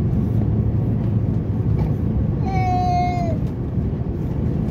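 Steady low rumble of cabin noise inside an Airbus A350-900 on approach. About two and a half seconds in, a brief high-pitched cry, like a child's or a cat's, is held for just under a second and drops in pitch at the end.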